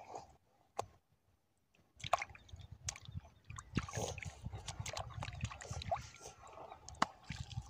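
Wet handling sounds as fish are lifted out of a shallow puddle on wet sand: water dripping and splashing, with irregular clicks and squelches. It starts about two seconds in, after a near-silent pause broken by one sharp click.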